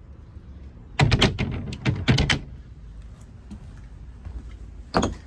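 Storage hatch lids on a Yamaha AR250 jet boat being opened and shut: a quick run of knocks and clatters about a second in, another about two seconds in, and one sharp knock near the end.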